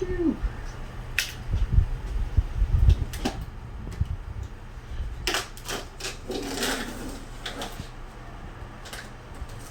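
Handling of a large cardboard TV box: scattered knocks and heavy thumps in the first three seconds, then cardboard scraping and rustling about five seconds in.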